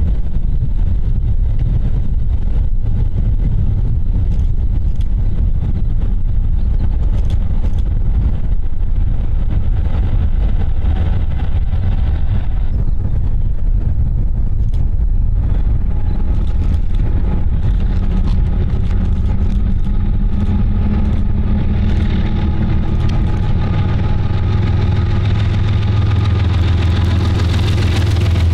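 A lashup of GE ES44AC and ET44AC diesel-electric freight locomotives approaching under power. Their engine drone with several steady tones grows steadily louder over the last dozen seconds as the units draw near. Wind rumbles on the microphone throughout.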